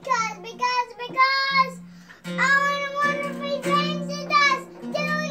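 A young child singing in short phrases that slide up and down in pitch, with a small acoustic guitar strummed underneath.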